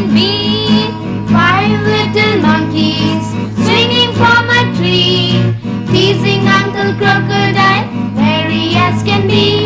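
Children singing a rhyme together in phrases over a steady instrumental accompaniment.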